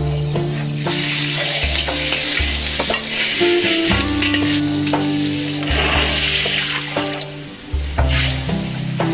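Food frying in hot oil in a wok, sizzling strongly from about a second in, with the clicks and scrapes of a spatula stirring it. Background music runs underneath.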